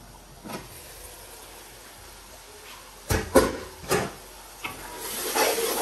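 Aluminium pot lid knocking against a large aluminium cooking pot: a few sharp clanks about three to four seconds in. Near the end a soft hiss of the simmering sauce rises.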